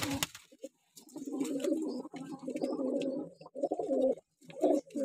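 A loft full of white low-flyer pigeons cooing, low rolling coos from several birds overlapping almost without a break, with two short pauses, about a second in and about four seconds in.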